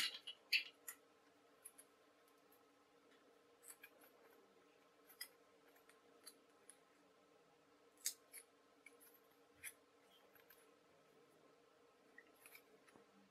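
Faint clicks and ticks of foam-card puzzle pieces being handled and slotted together, with two sharper clicks about half a second apart at the start.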